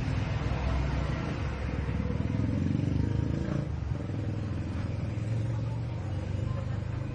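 Low, steady rumble of a motor vehicle's engine, swelling about two seconds in and easing off after three and a half seconds.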